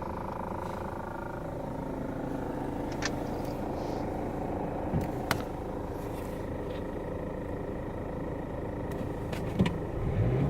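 Renault Duster 2's 1.5-litre diesel engine idling, with a semi-metallic knock like a vibration. The knock comes from the air-conditioning low-pressure pipe shaking and striking the right strut tower.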